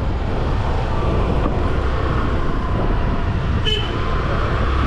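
Wind buffeting the microphone while moving fast along a street, a heavy uneven rumble over street and traffic noise. A brief high toot comes near the end.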